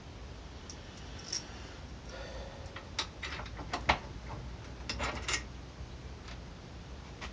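Small metal clicks and clinks from mounting bolts, washers and nuts being handled and fitted as a vise is bolted down, coming in scattered clusters with short gaps between.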